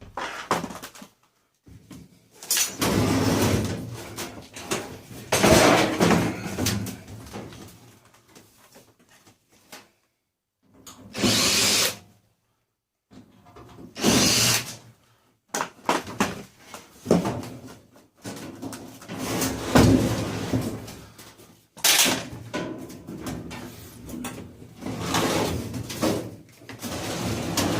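Power drill backing screws out of a clothes dryer's casing, run in repeated short bursts of a second or two, with knocks and rattles of handling between.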